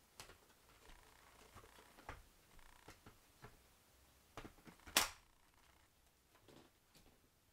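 Scattered faint clicks and knocks of plastic parts being handled, with one sharper, louder click about five seconds in; the vacuum's motor is not running.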